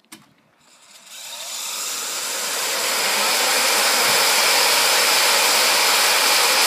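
Vacuum-cleaner motor with a CD taped to its shaft switching on with a click and spinning up, its whine and rush of air climbing over about three seconds, then running steady and loud at full speed.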